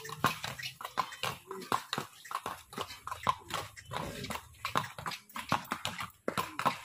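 Horse's hooves striking a paved road in quick, irregular clicks, about three to four a second, as the horse prances and rears on a lead rope.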